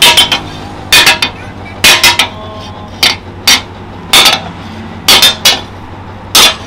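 Hand hammer striking a rusty steel strip cut from a chainsaw bar on a small steel anvil. The metal rings with each blow, and the blows come in quick clusters of two or three about once a second.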